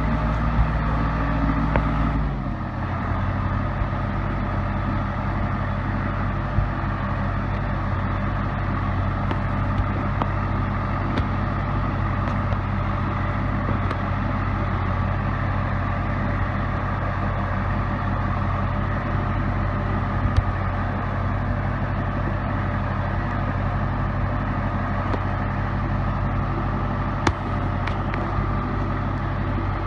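Case 580B backhoe's four-cylinder diesel engine running under a steady drone; about two seconds in, the engine speed drops to a lower, steady note. A couple of sharp knocks come through later on.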